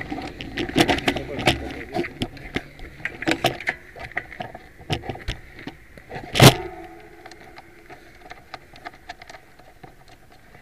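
Rubbing, clicks and knocks of a small camera being handled against clothing, with one loud knock about six and a half seconds in; the knocks thin out in the last few seconds.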